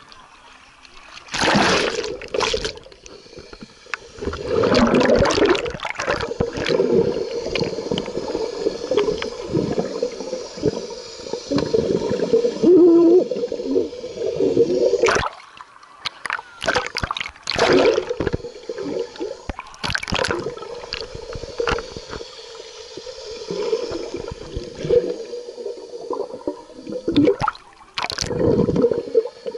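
Pool water splashing and gurgling around an action camera as it dips in and out of the water, the sound muffled while it is under the surface, with several louder splashes.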